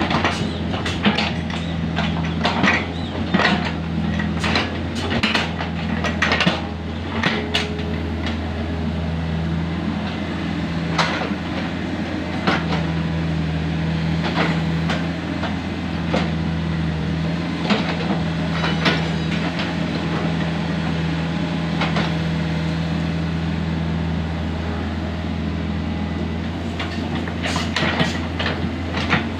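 Komatsu PC45 mini excavator's diesel engine running steadily under working load, with repeated metallic clanks and knocks from the bucket and arm, coming thick and fast in the first seven seconds and again near the end.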